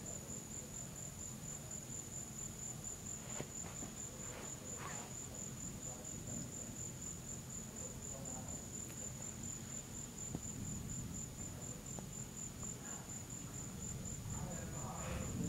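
Crickets trilling: one high, continuous, finely pulsing trill that does not change, over a steady low background noise with a few faint clicks.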